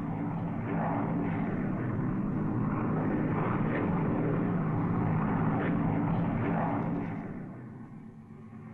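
Propeller airplane engines droning steadily. The drone fades to a fainter, more distant sound about seven seconds in.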